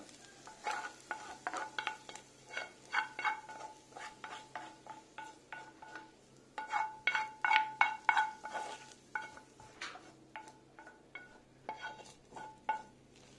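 A spoon scraping and knocking fried onion out of a frying pan into a plastic bowl: a run of irregular scrapes and taps, each with a short metallic ring, loudest about seven to nine seconds in.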